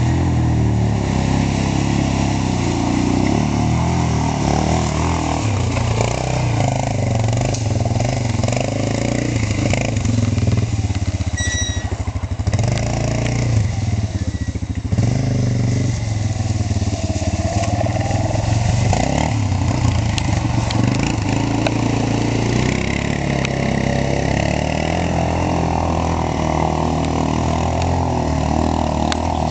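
ATV engine running and revving, its pitch rising and falling over and over as the throttle is worked.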